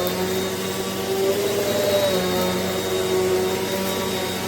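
Eureka NEU10AE5 bagless upright vacuum cleaner running steadily just after switch-on: a steady motor hum with a thin high whine. Its pitch rises slightly and settles back between about one and two seconds in.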